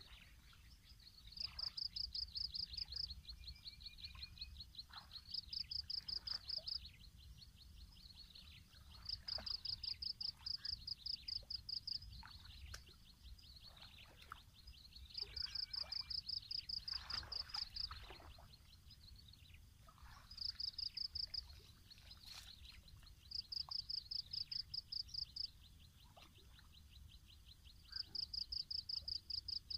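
Repeated high-pitched, rapidly pulsed animal trills, each lasting about a second and a half and recurring every few seconds over a fainter continuous trill, with soft water splashes from someone wading chest-deep in between.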